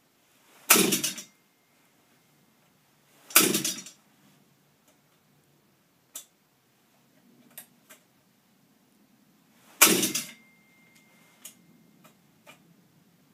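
Recoil starter pulled three times on a Shindaiwa power broom's small two-stroke engine, each pull a short rasping crank of about half a second, and the engine does not catch. Faint clicks of handling the starter come between the pulls.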